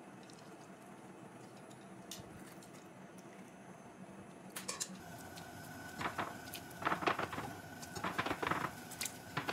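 Chunks of daikon radish dropped one after another into a cast-iron pot of beef broth: from about five seconds in, a run of splashes and knocks over a faint steady tone. Before that there is only faint handling as a mesh strainer of cooked vegetables is lifted out of the broth.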